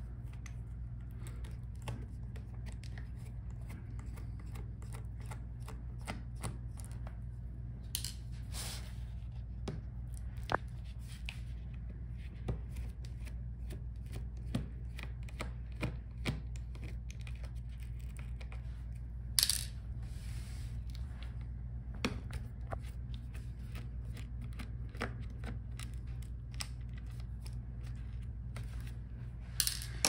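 Scattered small clicks and scrapes of a precision screwdriver working the bottom-case screws of a laptop and of hands handling the case, a few louder knocks among them, over a steady low hum.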